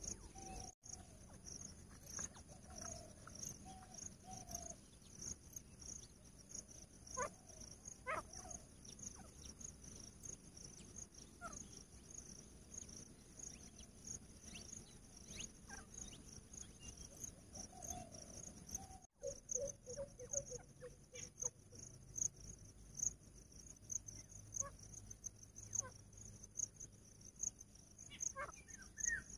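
Crickets or similar insects chirping: a steady high hum with a faster high chirp pulsing about three times a second. Now and then come a few soft low calls from grey francolins, including a quick run of short notes about two-thirds of the way in.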